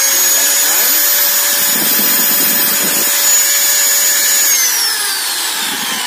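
New Ryu angle grinder running free with no disc fitted, a steady high motor whine at full speed, described as very crisp and dry. About four and a half seconds in it is switched off and the whine falls in pitch as the motor spins down.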